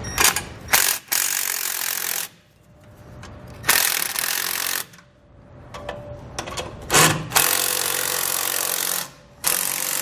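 Cordless impact wrench hammering carriage bolts down in about four short runs, with short pauses between them, tightening the axle strap of an air helper spring's lower bracket a little at a time, side to side.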